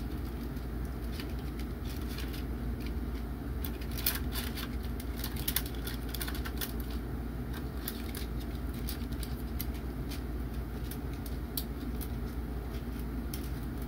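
Small hard-plastic toy parts clicking and rattling in the hands, the clicks thickest from about four to seven seconds in, over a steady low background hum.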